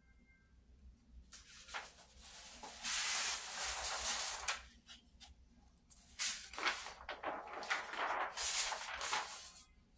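Large sheet of sketchbook paper rustling as it is lifted, flexed and folded back, in two long stretches of rustling with a short pause between them.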